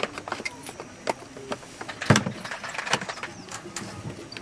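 Irregular knocks and clatters, the loudest a heavy thump about two seconds in, over a faint steady low engine hum.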